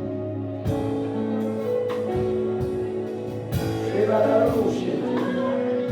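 Church gospel music: sustained keyboard chords with a few drum hits, and a voice singing a short wavering line about four seconds in.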